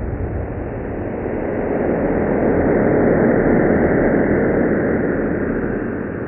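Sonification of the Event Horizon Telescope image of the black hole Sagittarius A*: a low, noisy rumbling drone that swells in loudness through the middle and eases off near the end. Its changes in loudness follow the brightness around the black hole's ring as the radar-like sweep turns.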